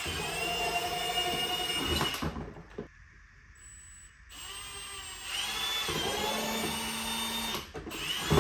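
Cordless drill boring the marked holes through a tailgate trim panel. One run ends about two seconds in, then after a pause a second run starts with its pitch rising and stops near eight seconds. A short burst follows at the very end.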